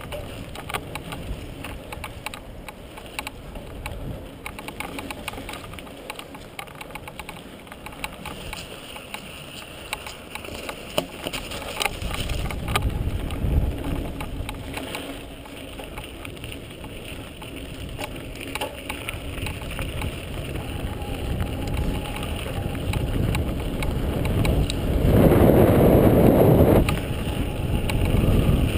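Mountain bike riding downhill on a dirt trail, heard through a mounted action camera: tyre rumble on dirt with many small rattling knocks from the bike over bumps, and wind rushing on the microphone. The rumble grows louder through the second half, with a loud rushing burst lasting about two seconds near the end.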